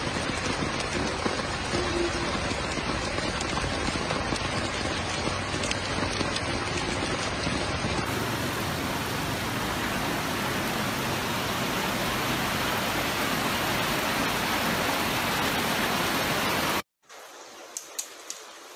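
Heavy rain and rushing floodwater making a loud, steady hiss. It cuts off abruptly near the end, leaving a faint background with a few light ticks.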